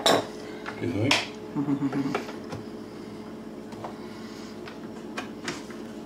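Clicks and clinks of a thin metal tool jabbed into the tab holes of a Keurig K-Supreme's plastic case, prying at the hidden snap-lock tabs to release it. A sharp click at the start and another about a second in, then fainter scattered ticks.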